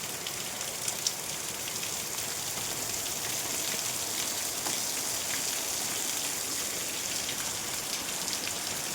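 Heavy rain falling steadily, with scattered drops ticking on nearby surfaces.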